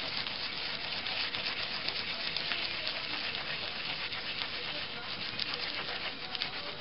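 Mountain yam (yamaimo) being grated by hand on a flat metal grater: a steady, scratchy rasping of strokes that stops at the end.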